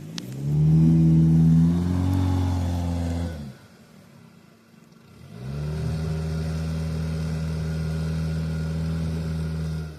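Jeep Renegade engine revved up twice, each time rising quickly and then held at steady high revs: first for about three seconds, then again from about five seconds in to the end, cutting off sharply each time.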